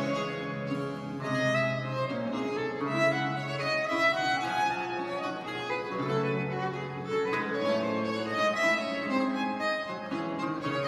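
Baroque chamber ensemble of two violins over a continuo of viola da gamba, archlute and harpsichord, playing divisions (variations) on an aria, tuned to baroque pitch A = 415 Hz. The violins carry quick, moving melodic lines over a steady bass.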